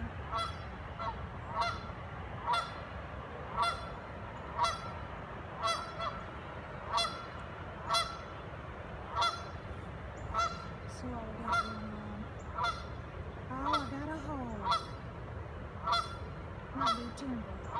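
Canada goose honking in a steady rhythm, about one honk a second, in alarm at a person close by.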